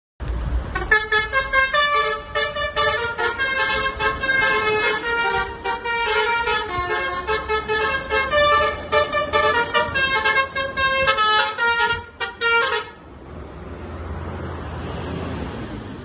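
Telolet basuri bus horn playing a quick melody of many short notes, the pitch changing several times a second, stopping abruptly about thirteen seconds in; after it, the bus's engine runs lower and steadier as it pulls away.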